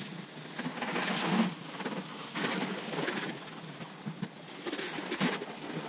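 Garden hose spray nozzle spraying water onto a car, a steady hiss that swells and eases as the spray moves over the body.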